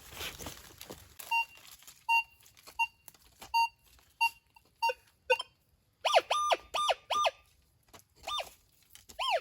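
Metal detector sweeping over a target: a string of short beeps, then quicker tones that swoop up and back down. It is a strong, centred signal that reads as iron, which is typical of the steel wire inside a tyre.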